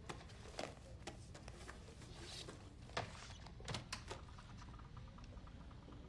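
Quiet room tone broken by a few soft clicks and knocks, about seven in all, most around three to four seconds in, as a laptop is lifted out of its case and opened.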